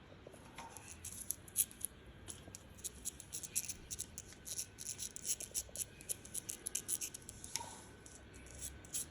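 A cat crunching dry food close by: quick, irregular crisp clicks and crunches, several a second.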